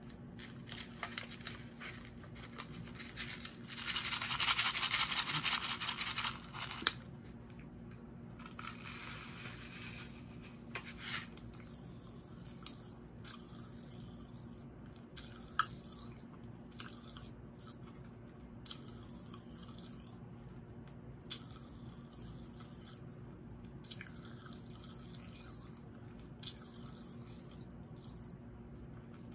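A strawberry Pop Rocks packet being torn open, with about three seconds of loud tearing and crinkling about four seconds in. After that come scattered small sharp clicks and crackles as the popping candy is eaten.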